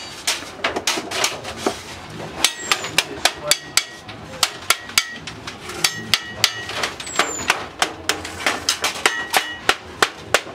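Hand hammering on aluminium sheet laid over a steel bar: sharp metallic blows, irregular at about two a second, some with a short ring, as the sheet's edge is beaten and folded for a baking pan.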